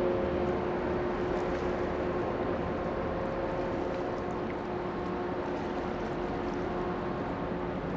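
Ship's engines running: a steady rumble with several held humming tones over it, easing off slightly.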